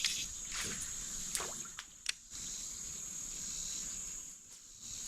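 Steady high-pitched drone of insects such as crickets, with a few sharp clicks about a second and a half and two seconds in.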